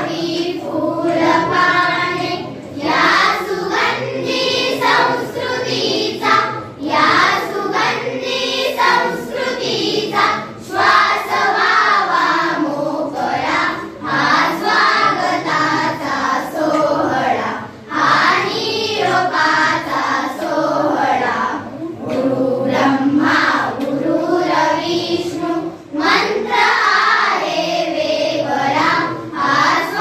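A group of schoolgirls singing a Marathi song together as a choir, in phrases with short breaks between them.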